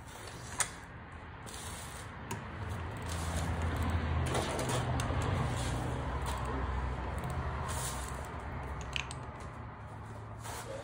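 Ratchet wrench working the clutch pressure-plate bolts on a Yamaha YZ250, giving scattered light metal clicks. Under the clicks, a low rumble swells from about three seconds in and fades again before the end.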